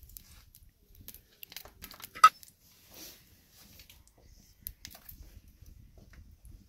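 Faint, scattered crackling of a block of butter starting to melt on a hot wide iron pan, with one sharp click a little over two seconds in.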